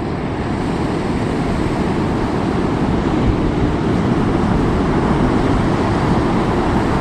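Ocean surf breaking and washing up the beach: a steady, even rush of water noise that swells slightly over the first few seconds and then holds.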